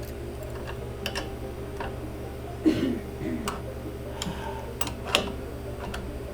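Irregular clicks and knocks of parts and tools being handled while an elliptical machine is put back together, the loudest about a third of the way in followed by a short scrape, over a steady low hum.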